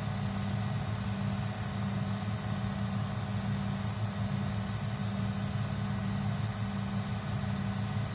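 Hydraulic excavator's diesel engine running steadily, a low, even drone with no revving.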